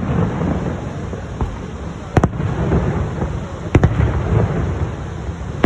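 Fireworks bursting: a sharp bang about two seconds in, two close together near four seconds, and another near the end, over a steady low rumble.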